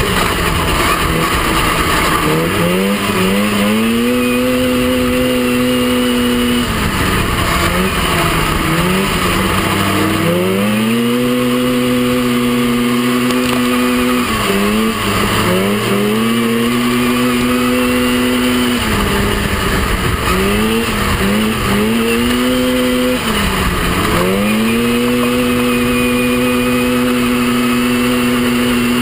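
Onboard sound of a racing mini off-road buggy's engine at full throttle, holding a high steady pitch on the straights and dipping about four times as the driver backs off for turns, then climbing back up. Wind and dirt noise run underneath.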